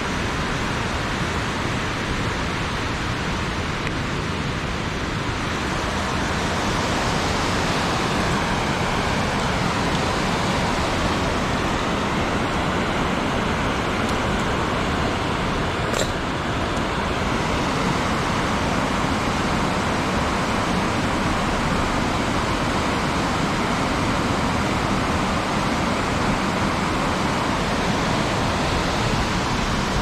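Steady rush of water pouring over a small concrete weir, an even noise that grows a little louder a few seconds in. A single click about halfway through.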